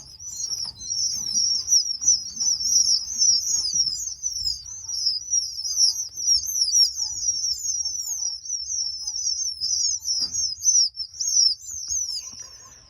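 A brood of ringneck pheasant chicks peeping constantly, many high-pitched chirps overlapping in a continuous chatter, with soft rustling in the first few seconds.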